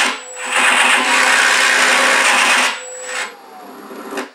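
Simulated piston-engine sound from an MR RC Sound V4 system's speaker in an FMS P-51B RC model, running loud with a brief dropout just after the start. Near three seconds in it winds down and stops, leaving a faint thin whine, as the system is shut down.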